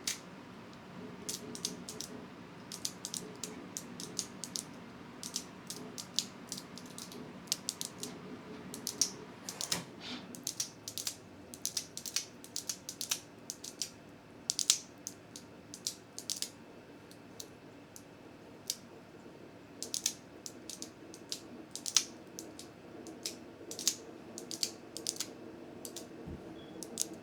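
Fidget slider being slid back and forth in the hand: sharp, irregular clicks, one to three a second, over a faint low hum.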